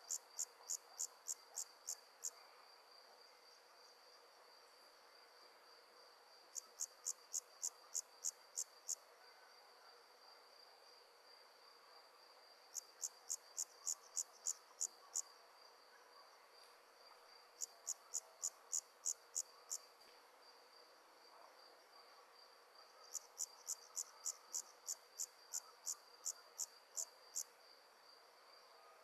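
Night insects calling: five bouts of sharp, evenly spaced chirps, about four or five a second for two to four seconds at a time, over a steady high trill.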